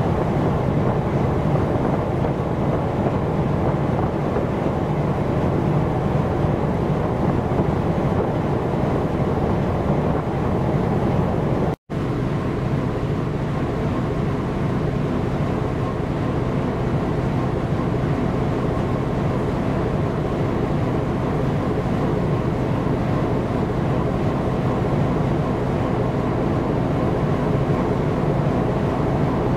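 Steady low drone of a passing coastal cargo ship under way, mixed with wind on the microphone. The sound breaks off for an instant about twelve seconds in.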